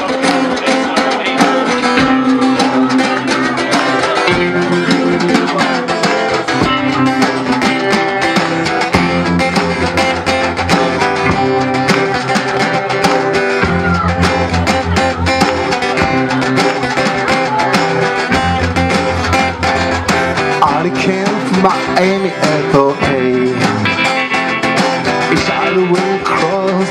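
Live band playing a rock song: acoustic guitar strumming over a steady drum beat, with an electric guitar.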